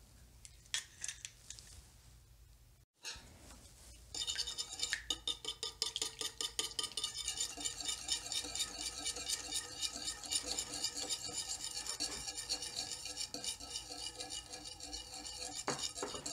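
Small battery-powered handheld whisk whirring as it beats egg and melted butter in a bowl, its wires ticking rapidly against the bowl, starting about four seconds in. Before it, a few faint clicks of eggshell being handled.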